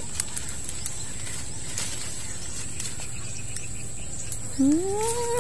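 Steady outdoor background noise, then, near the end, a loud drawn-out animal call that rises quickly in pitch and then holds level.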